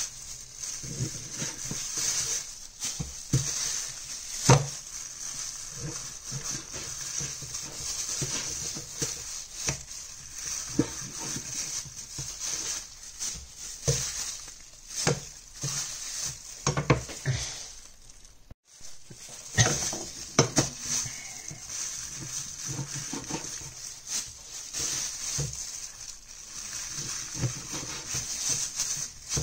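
Cleaver cutting raw pork on a wooden chopping board: irregular knocks and thumps of the blade meeting the board, the loudest about four and a half seconds in.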